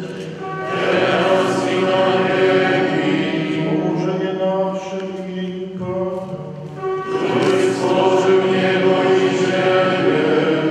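Many voices singing a chant together, in two long phrases of slowly moving held notes, with a brief dip between them about six seconds in.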